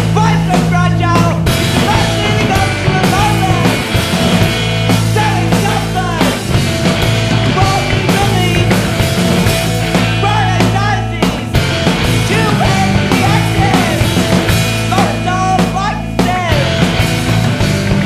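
Rock music from a band: long held bass notes under a bending melody line, with regular drum hits.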